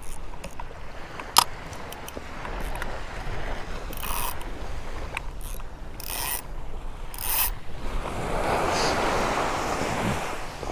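Large Penn Slammer spinning reel being handled: one sharp click about a second and a half in, then several short bursts of ratcheting from the reel's mechanism, and a longer rushing noise near the end.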